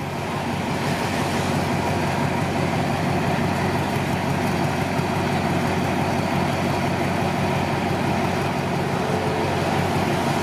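Alsthom AD24C diesel-electric locomotive idling at a standstill, its engine giving a steady, even low hum.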